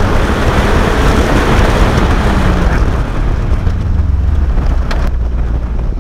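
Wind rushing over an open-top Toyota MR2 and buffeting the onboard camera microphone, with the engine running underneath. Both ease off about three seconds in as the car slows after the run.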